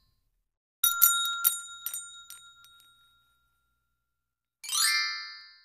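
Subscribe-button animation sound effects: about a second in, a burst of clicks with a bell-like ring that fades over about two seconds, then near the end a quick falling sweep that dies away.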